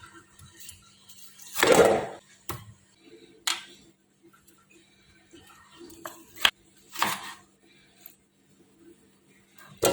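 Kitchen utensils and dishes being handled while preparing boiled chicken for soup: a handful of separate clanks and scrapes, the loudest about two seconds in, over a faint steady hum.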